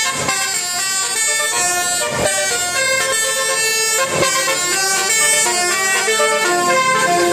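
A melody of held pitched notes changing in steps, several sounding together, with a short sharp click about every two seconds.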